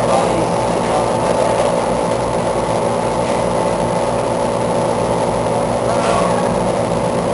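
Steady drone of the fans that drive a man-made fog tornado exhibit: an even rushing noise with a low hum of several steady tones in it.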